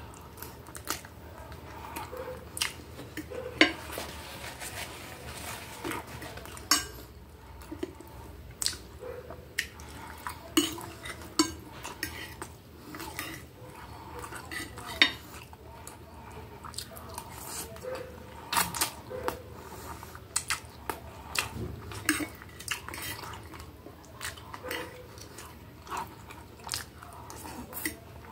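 Metal fork and knife clinking and scraping against a plate while spaghetti is twirled and a hamburger patty is cut, in irregular sharp clicks through the whole stretch.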